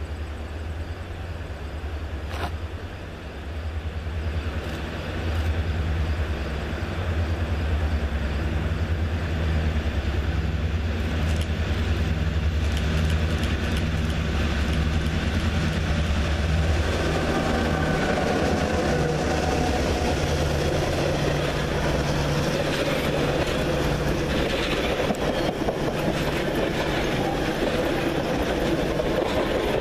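EMD F-unit diesel locomotive approaching and passing at track level with a pulsing low engine rumble, followed by passenger coaches rolling by with steady wheel-on-rail noise and faint squealing tones.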